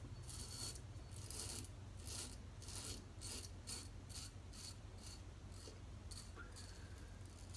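Merkur Futur adjustable safety razor, set on 6 with a new Feather blade, scraping through beard stubble and lather on the cheek in quick short strokes, about three a second.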